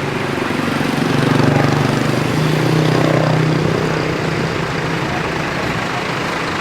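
Tour bus diesel engine running, a low drone that grows louder about a second in and eases off after the middle.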